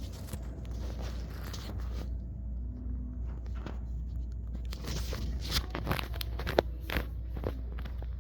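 Footsteps and rustling over a steady low rumble, with scattered sharp clicks and knocks from about halfway through, the loudest a single knock near the end.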